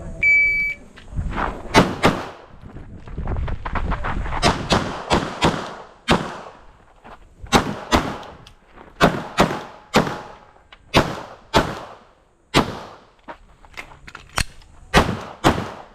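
An electronic shot-timer beep starts the run. It is followed by a Glock 19 Gen 5 9mm pistol firing about twenty shots over the stage, mostly in quick pairs.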